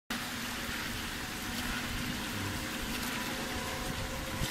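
Steady rush and splash of water flowing in thin sheets down the steps of a rooftop stepped cascade fountain.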